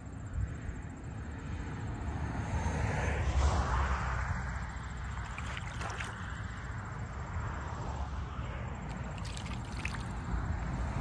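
Shallow water sloshing and splashing as a wader shifts and a trap pole is worked into a muskrat den underwater, with a few sharp clicks and a steady low rumble underneath; the splashing is loudest a few seconds in.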